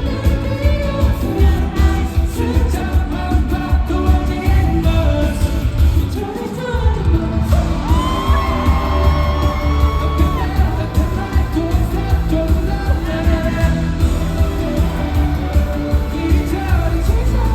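Live K-pop song played loud: a male singing voice over a heavy, pulsing bass beat. Near the middle the bass drops out briefly, then a long held note follows.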